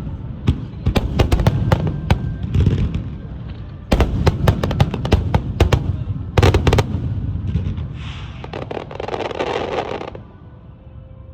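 Festival fireworks finale: rapid, overlapping booms and sharp crackling bursts, falling away about ten seconds in.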